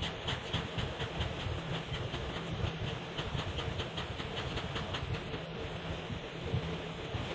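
Felt-tip marker scribbling back and forth on paper, a quick even rhythm of about five scratchy strokes a second over a low steady rumble.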